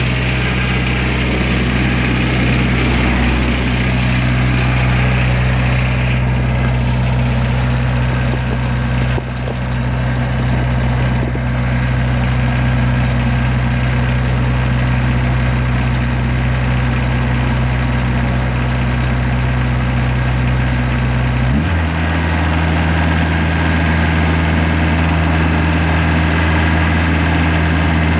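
Kubota R1-301 combine's diesel engine idling steadily. About three-quarters of the way through, its note changes abruptly to a different, steady pitch.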